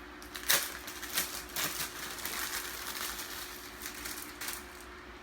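Packaging crinkling and rustling in irregular crackles as a hair frontal is handled, the loudest crackle about half a second in.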